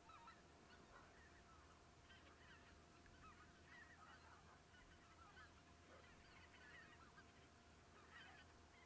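A flock of geese calling faintly in the distance, a continuous chatter of short overlapping honks, over a faint steady hum.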